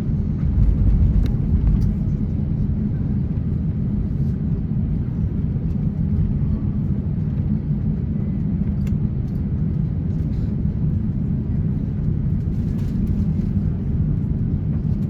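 Steady low rumble of an Airbus A350-900's cabin on the ground, from its engines and air conditioning, with a few faint clicks.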